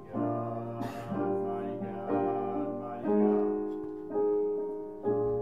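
Keyboard playing slow piano chords, a new chord struck about once a second and fading away over a held low note.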